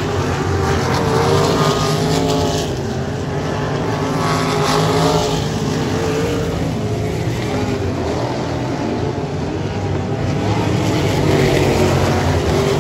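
A pack of open-wheel dirt-track race cars at racing speed, several engines running at once, their pitch rising and falling as the cars rev through the turns and pass by.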